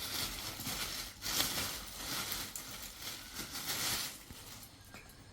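Packaging crinkling and rustling as a wrapped gift is handled and opened. The rustling stops about four seconds in.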